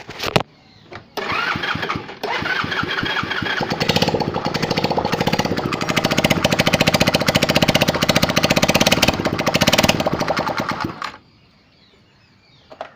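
Mahindra Duro scooter engine starting up about a second in and running for about nine seconds with a rapid, even 'kat kat' clatter, then stopping. The mechanic traces the noise to loose bolts on the starter one-way clutch plate.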